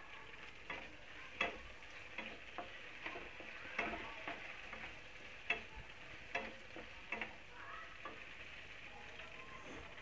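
Penne sizzling in a hot non-stick pan as a wooden spatula stirs it, with a steady frying hiss. The spatula knocks and scrapes against the pan irregularly, about once a second.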